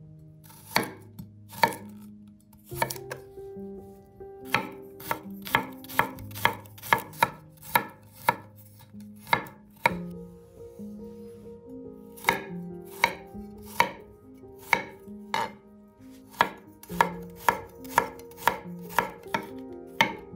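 Chef's knife cutting garlic cloves on a wooden cutting board: sharp knocks of the blade hitting the board, a few at first, then steady runs of about two a second as the garlic is chopped.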